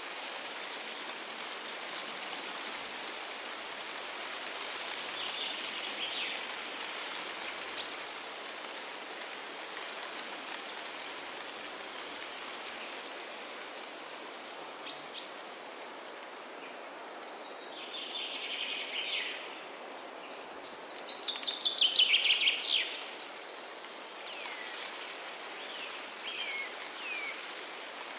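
Songbirds calling over a steady hiss of water. Scattered chirps lead into two fast trilled phrases past the middle, the second the loudest, followed by a few short chirps near the end.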